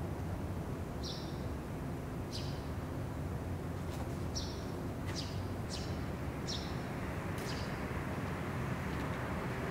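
Small birds chirping in short, high calls and quick falling notes, repeated every second or so, over a steady low background rumble.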